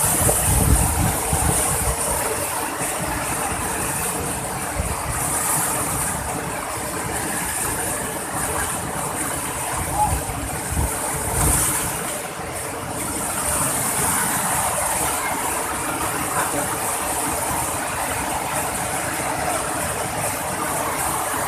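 Waterfall rushing steadily: a constant hiss of falling water.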